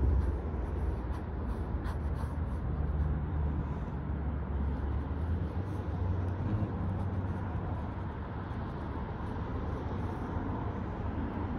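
Steady low outdoor rumble, with faint short scratches of an ink pen drawing on sketchbook paper.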